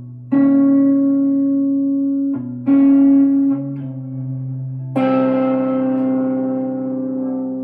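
Frank Brothers Arcade electric guitar played through a TC Electronic Hall of Fame 2 reverb into a modded Peavey Envoy amp: slow ambient chords, three struck in turn and left to ring out and fade, with the bass note moving beneath them.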